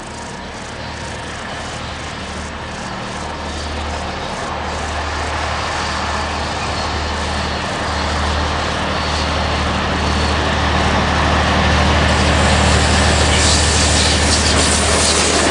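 ÖBB class 2067 diesel shunting locomotive approaching along the track, its engine drone growing steadily louder. Near the end, as it draws close, the clatter of wheels on the rails joins in.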